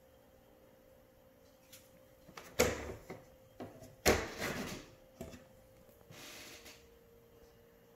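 Sliding door of a scale RC AS350 helicopter model being worked by hand: two sharp clacks, one about two and a half seconds in and one about four seconds in, a few lighter taps, and a brief sliding rasp a little after six seconds as the door runs along its rail.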